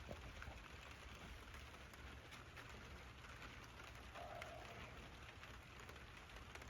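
Light rain falling, a faint steady patter with scattered drop ticks.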